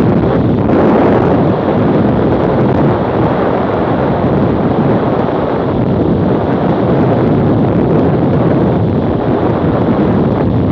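Steady wind rush on an action camera's microphone on a BMW F800GS motorcycle at road speed, with the bike's running noise blended underneath.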